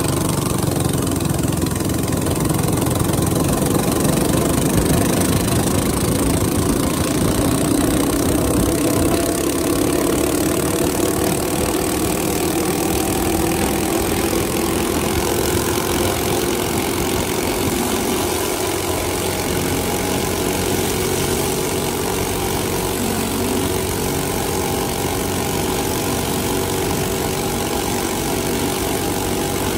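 Coleman CT200U mini bike's single-cylinder engine, fitted with a 30 mm PWK carburetor, running under way. Its revs climb over the first several seconds and then hold fairly steady at cruising speed, with wind rushing over the bike.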